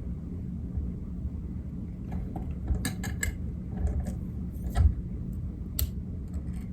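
A few light clicks and taps of fly-tying tools being handled at the vise while thread is wrapped over the bucktail wing, with a steady low hum behind them.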